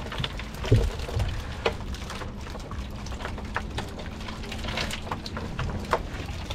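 Irregular wet slapping and pattering of freshly caught live red mullet flapping in the catch, with water dripping, and one heavier thump just under a second in.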